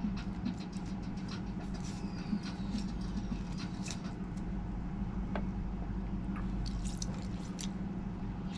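Lemon halves squeezed by hand over a glass bowl of raw fish, juice dripping in with scattered small wet clicks. A steady low hum runs underneath.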